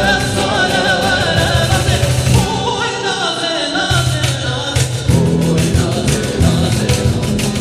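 Kurdish folk song: a wavering solo voice over plucked strings, bass and a steady beat.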